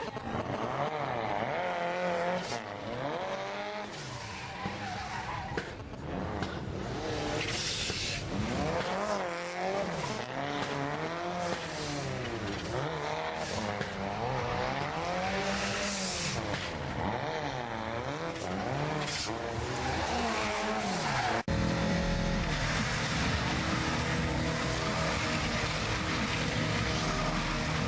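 Car engine revving up and down over and over as the car spins doughnuts, with short bursts of tyre squeal on the tarmac. About 21 seconds in the sound cuts to another car's engine running at a steadier pitch.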